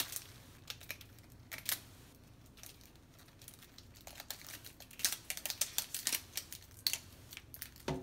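Plastic wrapper layers of LOL Surprise balls being crinkled, peeled and torn by hand, in scattered short crackles that come thickest about five to six and a half seconds in.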